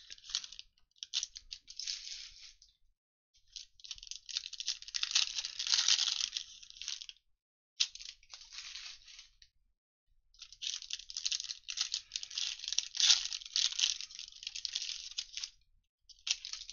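Foil trading-card pack wrappers being torn open and crinkled by hand, in several runs of crackling with short pauses between.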